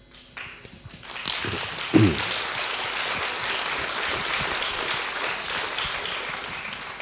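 Audience applauding after a talk, swelling in about a second in and tailing off near the end, with a short voice falling in pitch about two seconds in.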